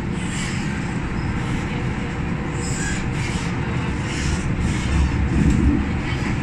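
Interior running noise of a Metro-Cammell M-Train electric multiple unit pulling into a station: a steady low rumble from the wheels on the rails, with short hisses now and then as it slows toward a stop.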